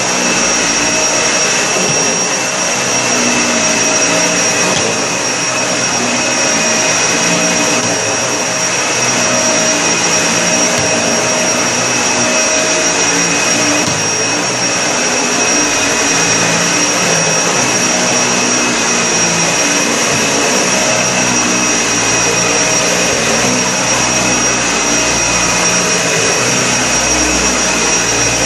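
Vacuum cleaner running steadily on carpet: a constant motor roar with a high, even whine above it.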